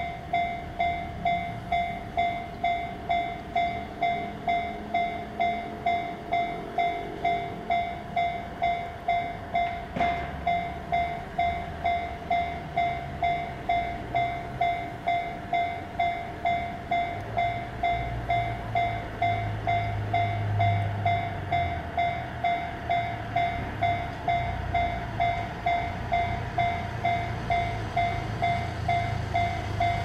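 Japanese railway level-crossing alarm ringing its electronic 'kan-kan' tone over and over in a steady, even rhythm, with the barriers down for an oncoming train. A low rumble joins in the second half.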